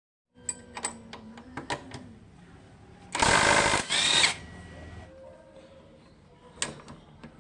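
Handheld power tool running in two short loud bursts a little over three seconds in, with scattered sharp clicks of tools before and after.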